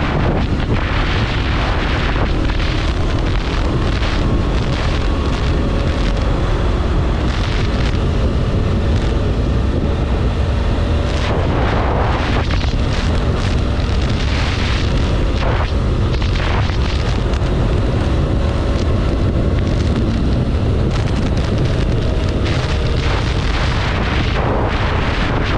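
Heavy wind buffeting on the microphone of a sport motorcycle riding at speed, with the bike's engine running faintly underneath. A few louder rushes come and go about halfway through.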